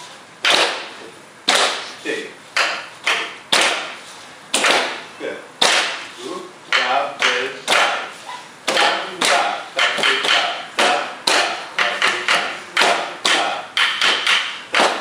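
Rhythmic sharp strikes keeping the beat of an Odissi dance, roughly two a second with quicker clusters, each ringing briefly, with a voice heard between them.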